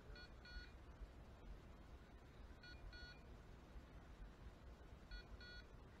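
Faint double electronic beeps from a dog's beeper collar in point mode, one pair about every two and a half seconds, three pairs in all: the signal that the dog is standing on point. A faint low rumble lies underneath.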